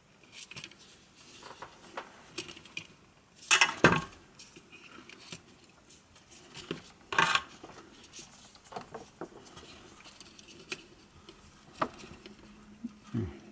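Small hard objects knocking and clinking as tools and headphone parts are handled on a workbench, with two louder clatters, about three and a half seconds in and about seven seconds in, and scattered lighter clicks between.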